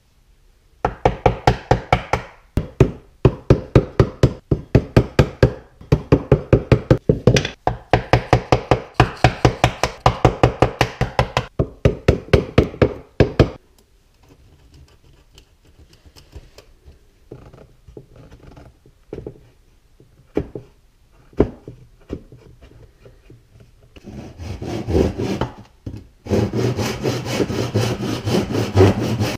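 A hand tool worked on wood in fast, even back-and-forth strokes, about three a second, for the first half. A stretch of light, scattered scrapes and taps follows, then another dense run of scraping strokes near the end.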